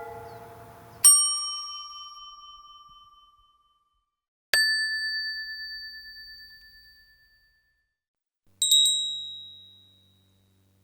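Small religious bells struck one at a time. Each gives a single clear ding that rings and fades over a few seconds: three different bells, each higher than the last, the third a quick double strike. A previous bell's ringing dies away just before the first ding.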